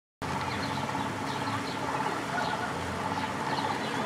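Canal boat's engine running steadily as the boat motors past, with a low hum and an even pulsing note. Birds chirp briefly over it.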